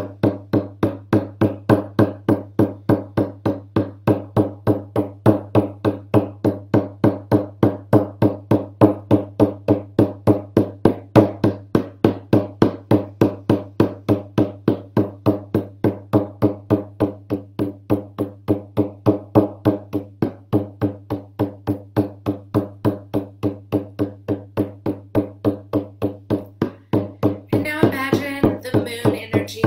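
Hand-held frame drum with a hide head beaten in a steady, even rhythm, about three to four strokes a second, each stroke ringing low. A voice joins the drumming near the end.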